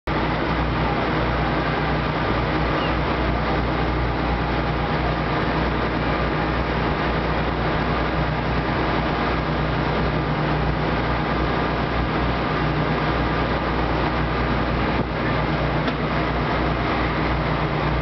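Boat engine running steadily under way: a low, even hum under a constant rushing noise.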